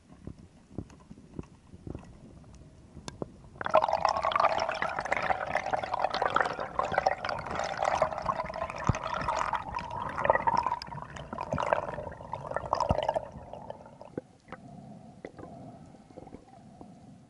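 Water sounds heard underwater. Faint clicks and crackles come first; then, about four seconds in, a loud burst of bubbling, rushing water runs for about nine seconds and drops away to a faint hum with scattered clicks.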